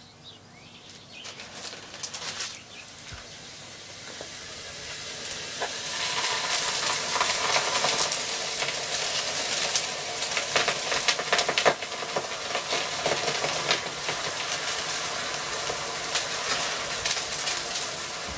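Homemade sugar and potassium nitrate smoke bomb burning: a hiss that starts faint, builds over the first few seconds and runs loud and steady from about six seconds in, with scattered crackles and pops.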